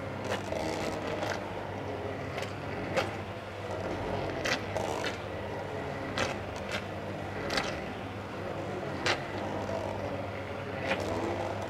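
Hand-held immersion blender running steadily while pureeing carrot soup in a stainless steel saucepan. Sharp knocks come every second or so at irregular times, typical of the blade guard striking the pan's metal.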